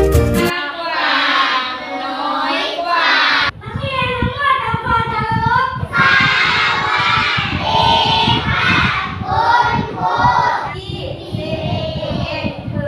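A group of young children singing together, after a short music jingle that cuts off about half a second in.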